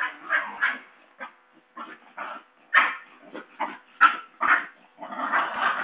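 Basenji puppies yelping and yipping while they play-fight, a rapid, irregular string of short cries with a longer, louder stretch near the end.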